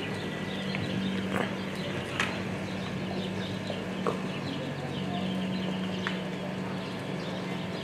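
Many short, high chirps of small birds over a steady low hum, with a few sharp clicks; the hoofbeats of a horse loping on soft arena dirt are faint underneath.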